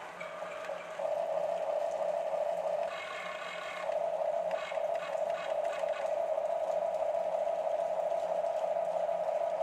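Electric gear motors of a Huina radio-controlled toy excavator whining steadily as the boom and bucket arm move, the tone changing as functions stop and start about a second in and again around three and four seconds, with a few light clicks from the gearing around five seconds.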